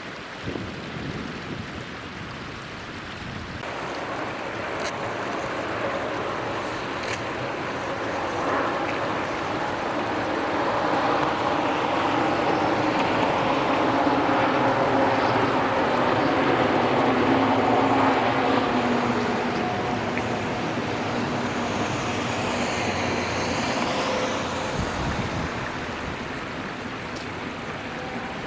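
Electric freight train with container wagons passing on the line: its running and wheel noise builds over several seconds, is loudest midway, then fades. A brief high whine comes near the end. The stream flows throughout.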